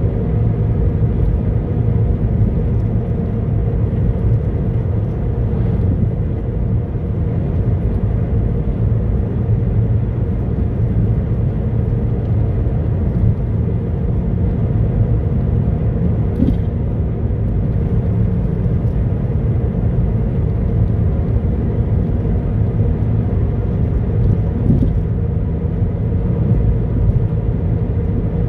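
Car driving along a road, heard from inside the cabin: a steady low rumble of road and running noise.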